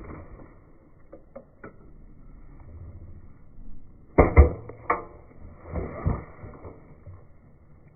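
Airsoft gun being handled for a reload: a few light clicks, then two loud, sharp mechanical clacks about half a second apart, followed by a short rattling scrape.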